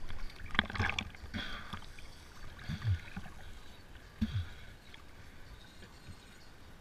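Wind buffeting the microphone in a steady low rumble, with water splashing and sloshing, and a few brief knocks near the start.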